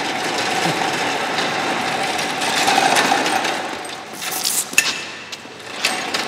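Continuous mechanical rattling and buzzing, like a small machine running, that starts abruptly. It eases off about four seconds in, with a few sharp clicks, then picks up again near the end.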